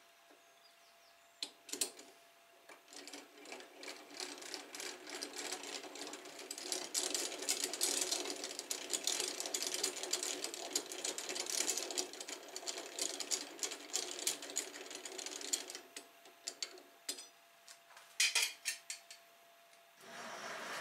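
Rapid, continuous mechanical clicking and rattle from a small lathe mechanism, starting about two seconds in and stopping a few seconds before the end. A few separate clicks follow it.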